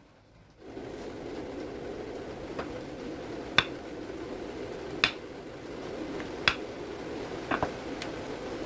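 Rolling pin working dough on a wooden board, with a sharp knock about every one and a half seconds over a steady background hiss.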